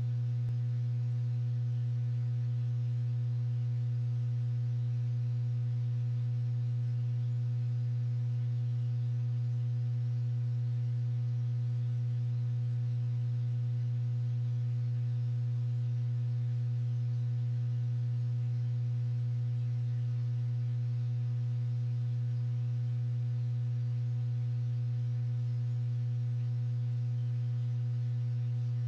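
Steady low electrical hum with a stack of overtones. It holds one unchanging pitch and level throughout.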